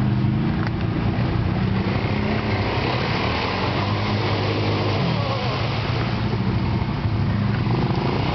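ATV engine running under load as the quad ploughs through a deep mud hole, its pitch rising and then falling midway as the throttle works, with mud and water splashing around the wheels.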